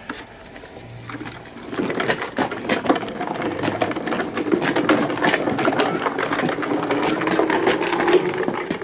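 Cable winch hauling in under load while lifting a lathe: a steady mechanical drone with dense rattling clicks, starting about two seconds in.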